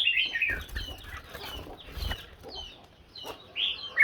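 Red-whiskered bulbuls singing short, quick whistled phrases. There is a loud burst at the start and another near the end, with softer notes in between.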